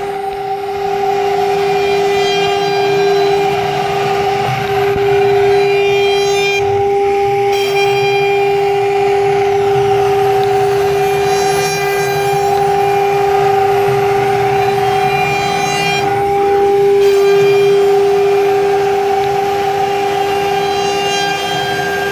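Omni 1325 CNC router's spindle running with a steady, high whine while the bit cuts a pattern of shallow round pockets into a wooden board, with the rasp of the cut over it.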